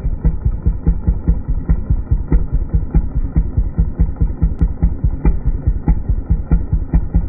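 Small engine idling with a steady, pulsing beat, about four thumps a second.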